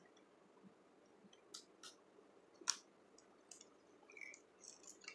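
Faint, scattered clicks and ticks of wire and small tools being handled at an MCB terminal during panel wiring, the loudest nearly three seconds in.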